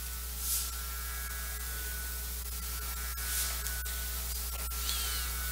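Steady electrical mains hum from the sound system, with faint rustles and a few small clicks.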